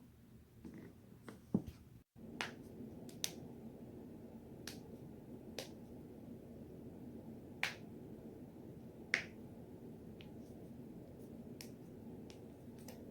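Joints cracking: about ten sharp, short pops at uneven spacing, one every second or so, the two loudest past the middle, over a steady low hiss.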